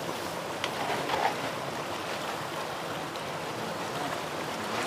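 Steady splashing of a water stream falling from a pipe outlet into a tarpaulin koi tank, with a few faint clicks about a second in.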